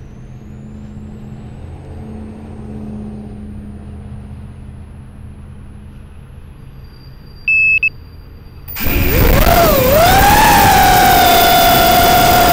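A short electronic beep from the FPV quadcopter, then its brushless motors suddenly spin up to a loud, high-pitched whine. The pitch dips and climbs again as the quad lifts off, then holds steady in flight. It is heard from a camera on the frame, right beside the motors.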